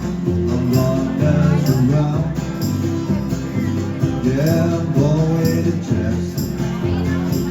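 Music with a steady beat and a bending melody line.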